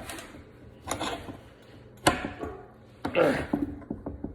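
Three sharp knocks about a second apart, like tools or stock being set down or handled.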